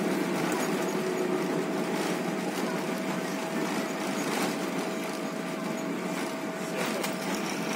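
Airliner cabin noise during the landing roll: a steady wash of engine and air noise that eases slightly, with a faint steady hum and a few light rattles.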